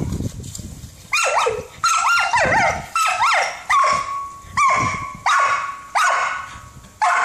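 Kelpie barking in play at a lawn sprinkler's spray: a quick run of about ten sharp barks, starting about a second in.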